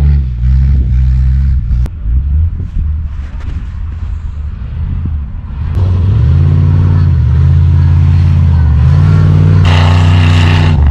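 Off-road vehicle engine running and revving, its pitch rising and falling. It gets louder about six seconds in and stays loud, with a rougher noise added shortly before the end.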